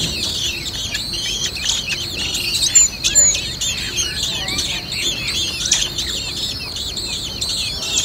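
A brood of blackbird nestlings begging to be fed: a dense, continuous chorus of rapid, high-pitched chirps.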